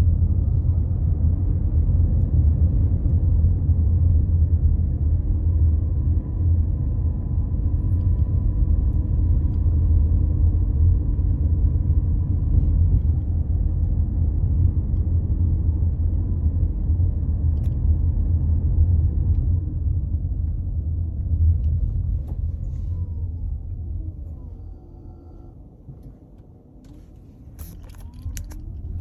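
Steady low road rumble inside the cabin of a 2020 Toyota RAV4 Hybrid while driving. Near the end the rumble fades as the car slows, a whine falls and then rises again, and a few sharp clicks come through: the rattle or clicking from the B-pillar area.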